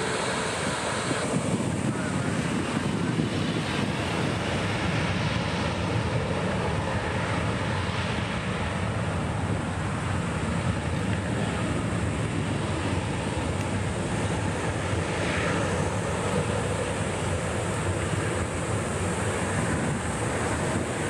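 Airbus A330-202's twin GE CF6-80E1 turbofans at takeoff power: a steady, deep jet roar as the airliner rolls down the runway.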